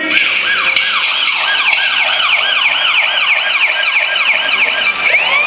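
Police-style siren on a fast yelp, its pitch rising and falling about three times a second, with a slower rising sweep starting near the end.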